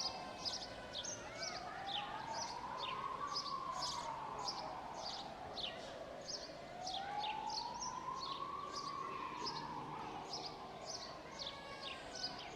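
Emergency-vehicle siren in a slow wail, rising and falling about every five or six seconds, over continual chirping of small birds.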